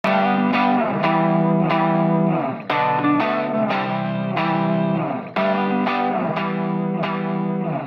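Intro music: a distorted electric guitar playing a riff of struck chords that repeats about every two and a half seconds.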